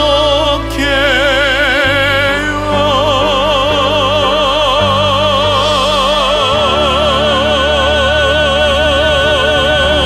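Woman singing a Korean Catholic song-prayer with wide vibrato: a short phrase, then a long final note held for about seven seconds over sustained accompaniment that changes chord twice, closing the song.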